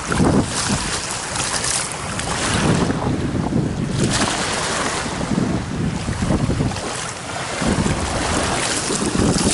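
Wind gusting across the microphone in uneven buffets, over the lapping of shallow sea water.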